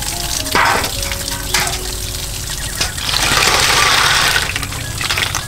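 Water splashing as live snails are stirred and rinsed by hand in a metal basin, over a steadily running small waterfall. From about three seconds in there is a longer, louder rush as a basket of snails is tipped into the water.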